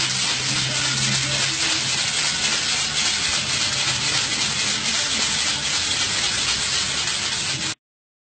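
Sand and water shaken inside a plastic radiator reservoir tank, a continuous gritty hiss as the sand scours the algae off the tank's inner walls. It cuts off abruptly near the end.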